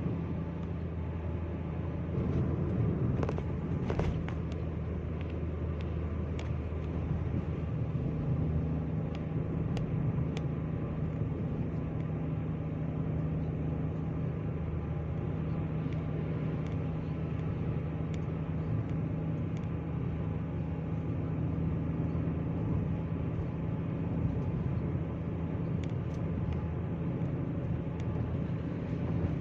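A car driving along a highway: a steady low drone of engine and road noise, with a few faint clicks scattered through it.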